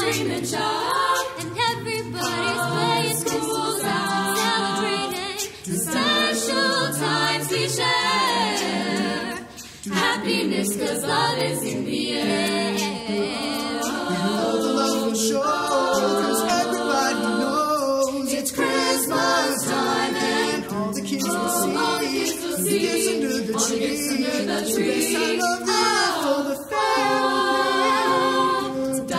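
A small mixed group of teenage voices singing a cappella in harmony, pausing briefly about nine and a half seconds in.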